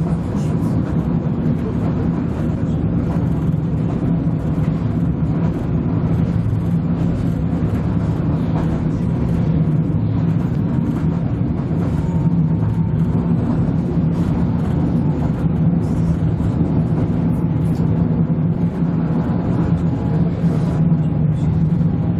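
Interior running noise of a DB class 646 (Stadler GTW) diesel multiple unit travelling along the line: a steady low drone from the traction unit mixed with wheel and rail noise, even throughout.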